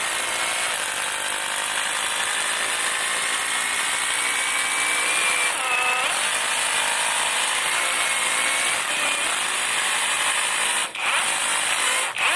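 OSUKA OSRH-26 cordless brushless SDS rotary hammer in hammer-drill mode, boring a 6 mm masonry bit into a hard old concrete floor: a steady, loud hammering rattle with a motor whine. It eases off briefly twice near the end.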